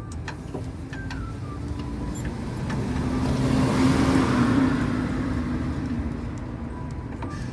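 A vehicle passing by: it grows louder to a peak about four seconds in, then fades away.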